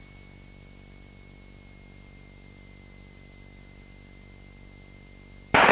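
Cockpit intercom audio in a Beechcraft Sundowner: a faint steady engine hum under hiss, with a thin steady high whine. A loud burst of speech cuts in just before the end.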